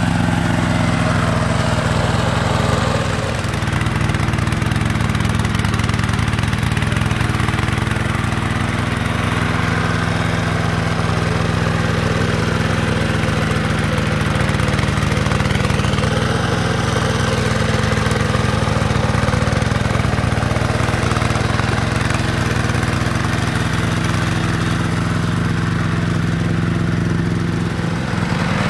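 Single-cylinder diesel engine of a two-wheel hand tractor running steadily under load while it tills wet paddy mud. The pitch shifts slightly a few times.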